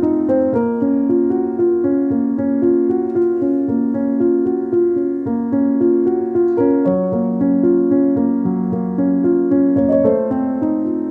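Background piano music, a gentle melody of sustained notes.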